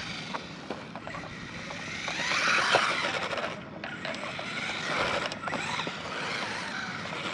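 Small brushed electric motor and gear drive of a 1/16 scale RC drift car (Su Chi Yu 16301, also sold as JJRC Q117E), whining up and down with the throttle, loudest about two and a half seconds in. Its hard drift tires hiss and scrub on the pavement underneath.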